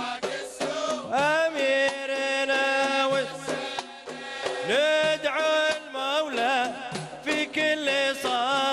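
Kuwaiti patriotic song in Middle Eastern style between sung lines: long held melodic notes that slide up into and down out of each note, over steady percussion.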